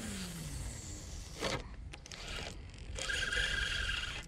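A spinning reel just after a cast: a falling whir at the start, then a sharp click about a second and a half in. From about three seconds in, a steady gear whine as the handle is cranked to retrieve the lure.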